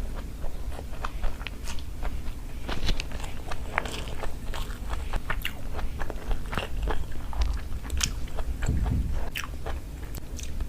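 A person chewing and biting into a curry meal close to the microphone: irregular wet mouth clicks and smacks, several a second.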